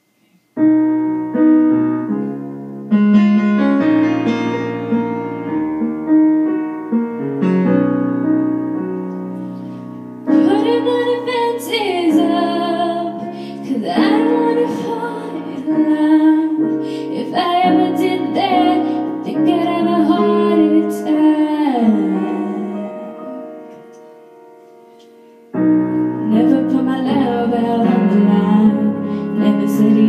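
Piano playing an introduction of sustained chords, then a young girl singing over the piano accompaniment from about ten seconds in. Near the end the sound dies away for a moment, and piano and voice come back in together.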